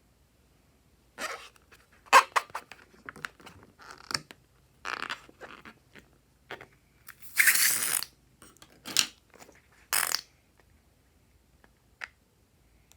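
Slime being squished and handled: an irregular run of short wet, crackly squishes, the longest and loudest about seven seconds in, with one last short one near the end.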